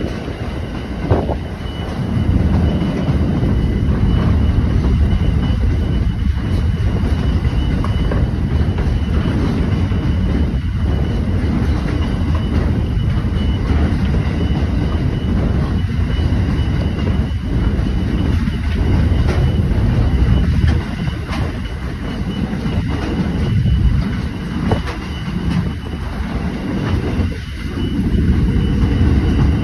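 CBH grain hopper wagons of a freight train rolling past a level crossing: a steady low rumble of steel wheels on rail with scattered knocks. A thin repeating ring from the level-crossing bell sits above it.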